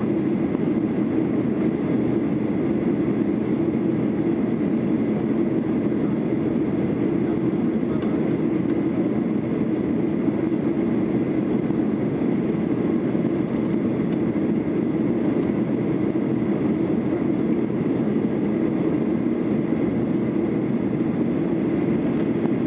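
Steady roar inside the cabin of a Boeing 737-800 in flight: its CFM56-7B engines and rushing air. A few faint ticks sound over it.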